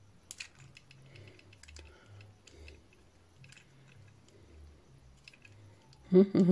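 Faint small clicks and ticks of a screw being worked out of a plastic toy figure by hand. About six seconds in, a man starts humming a steady note.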